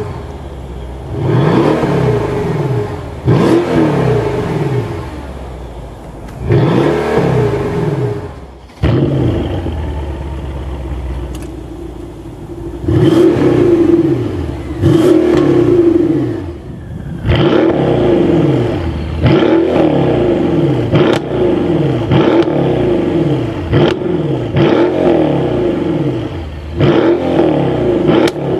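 Mercedes-AMG S63 Coupe's 5.5-litre twin-turbo V8 revved in short blips while standing still. It is heard first through the stock exhaust, then through an HMS-Tuning valved cat-back system with the valves in comfort mode, and from just past the middle in sport mode. In sport mode the blips come every second or two, louder, with sharp cracks between them.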